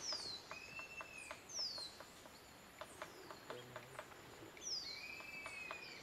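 Woodpecker pecking at wood: a steady run of faint taps. A bird call sounds twice over it, a quick falling whistle followed by a longer arched whistle, once at the start and again about five seconds in.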